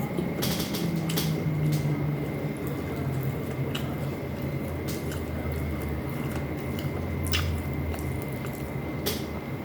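Close-miked eating of soft stewed fish and rice: wet chewing and smacking, with a few sharp clicks scattered through, over a steady low hum.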